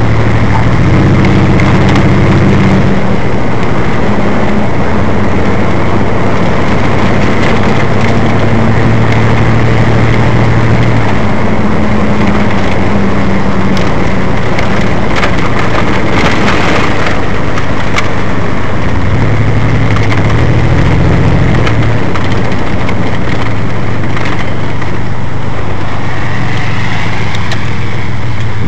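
Car driving along a road, heard from inside the car: loud, steady engine and road noise with a low hum that shifts in pitch every few seconds.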